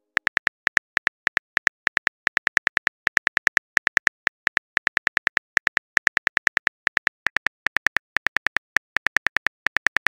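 Simulated phone-keyboard typing clicks from a texting-story app: a quick, slightly irregular run of sharp ticks, several a second, as a message is typed letter by letter.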